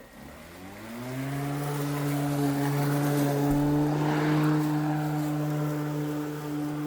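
Ryobi ONE+ 13-inch cordless battery lawn mower's electric motor starting up: its hum rises in pitch over about the first second, then runs steadily at full speed.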